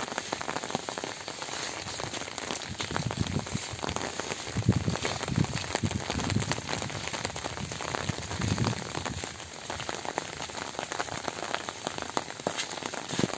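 Steady rain pattering on leaves and wet ground, with a few short, soft low thumps.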